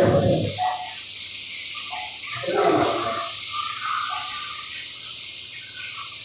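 Working-kitchen background noise: a steady hiss, with two short, louder sounds, one at the start and one about three seconds in.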